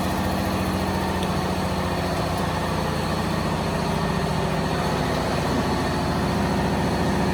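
A 1325 ATC CNC wood router and its equipment running, giving a steady low machine hum.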